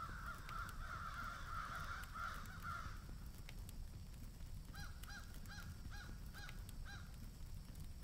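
Crows cawing: a dense stretch of overlapping calls for about three seconds, then a quick run of about six short caws near the end, over a steady low rumble.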